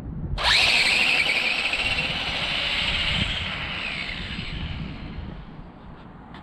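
Electric RC drag car launching hard from a standing start on a 4S battery pack: a high motor whine with tyre noise starts suddenly about half a second in, then fades over the next few seconds as the car runs away down the strip.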